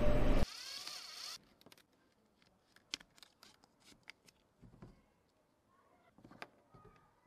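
Faint, sparse clicks and light scrapes of a plastic water-bottle cap being handled as a thin wire is pushed through a small hole drilled in it.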